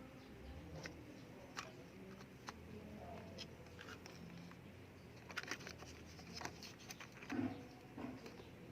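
Handling noise from unboxing a camera: scattered light clicks and taps of parts and packaging being picked up and set down, with a quick run of clicks about five seconds in and a louder knock a couple of seconds later.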